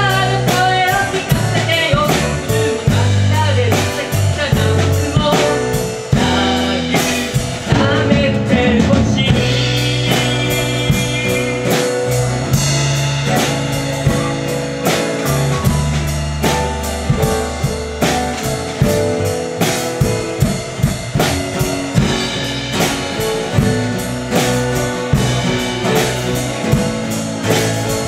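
Live band playing with a steady drum-kit beat, acoustic and electric guitars and keyboard.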